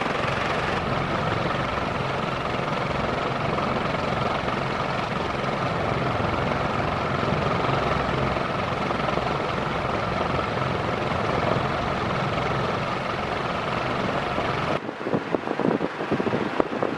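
Jinling FC-30X5 ceiling fan with five metal blades running, a steady rush of moving air. About 15 seconds in, its downdraft buffets the microphone with fluttering wind noise.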